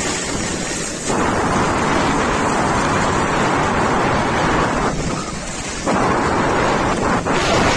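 Wind buffeting the microphone of a camera moving fast down a ski slope, a loud, steady rushing noise that dips briefly about five seconds in.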